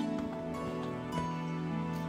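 Background music with long held notes; the chord changes about a second in.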